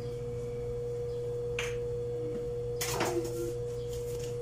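A steady hum at a single pitch, with two light knocks, one about a second and a half in and a slightly louder one about three seconds in.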